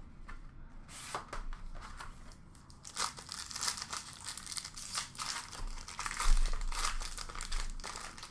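Clear plastic shrink wrap being torn off a sealed trading card box and crumpled in the hands: a run of crackly crinkling and tearing that starts about a second in and grows denser from about three seconds in.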